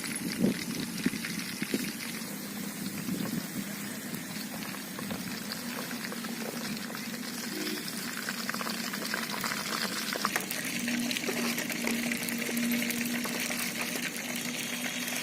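Chicken frying in hot oil: a steady sizzling with a constant fine crackle.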